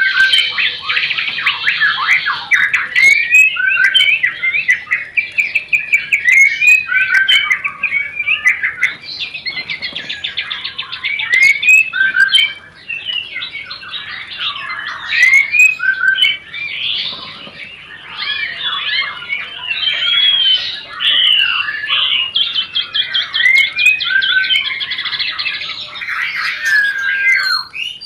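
White-rumped shama (murai batu) in breeding condition, singing a dense, fast chatter of rattling trills and short whistled notes. It is the mating-call "rencetan" chatter used to bring other murai into breeding condition. The song pauses briefly near the middle.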